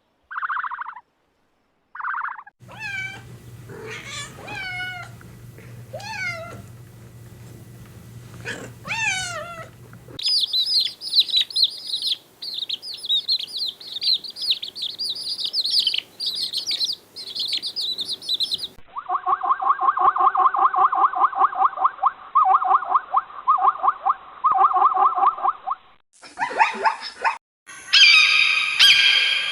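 A run of different animal calls, cut one after another and changing every few seconds: two short calls, then gliding calls over a low hum, then fast high chirping, then a rapidly repeated call.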